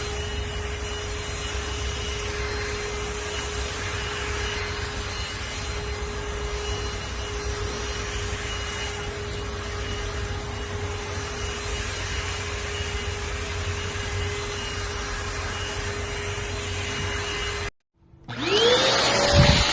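Keromee 2-in-1 handheld cordless vacuum cleaner running steadily, with an even motor hum over the rush of its airflow. Near the end the sound breaks off briefly and a louder motor starts up, its whine rising in pitch as it spins up.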